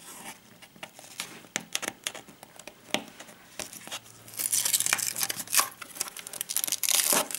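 Adhesive security sticker being peeled off a cardboard box: scattered small crackles and taps at first, then a dense crackling tear lasting about three seconds, starting around four seconds in.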